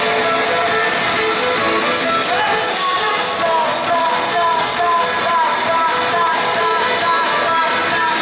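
Rock band playing live: a steady beat on drums and cymbals under guitars, with a sliding melodic line coming in about two and a half seconds in.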